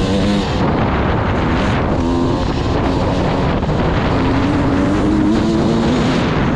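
Enduro dirt bike engine running hard on a dirt track, its pitch climbing as the rider accelerates, about 2 seconds in and again from about 4 seconds. Wind buffets the microphone underneath.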